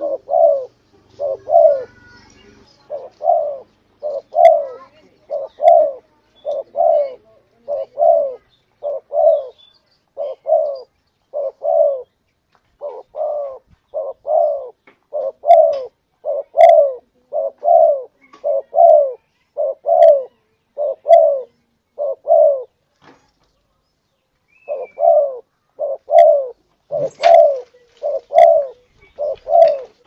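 Spotted dove (tekukur) lure call: a steady run of short coo notes, about one and a half a second, breaking off for nearly two seconds near the end and then resuming.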